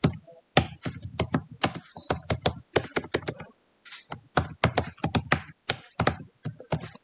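Typing on a computer keyboard: quick, irregular key clicks in bursts, with a short pause about halfway through.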